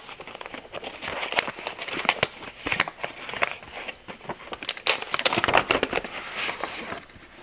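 Thick wrapping paper crinkling and crackling as it is unfolded off a small gift box by hand, in an irregular run of crackles that die away near the end.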